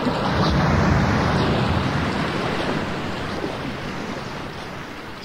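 Rushing water, a steady noisy wash, fading out gradually.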